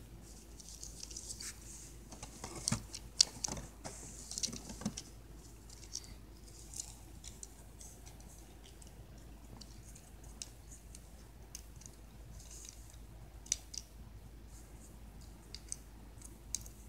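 Handling of a small plastic Transformers Battleslash figure and its box: light scratching and rubbing with scattered small clicks, and a cluster of sharper clicks a few seconds in.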